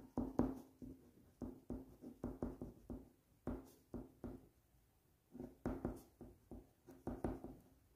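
Pen writing on a sheet of paper, faint short scratching strokes in quick runs, with a pause of about a second midway.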